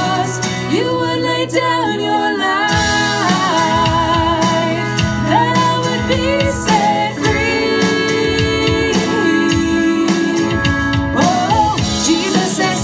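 A gospel-style worship song: a singing voice holding and bending melodic lines over a band with sustained keyboard-like chords and bass.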